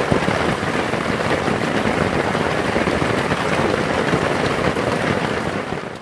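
Steady rain falling in a forest, an even rushing hiss that fades out near the end.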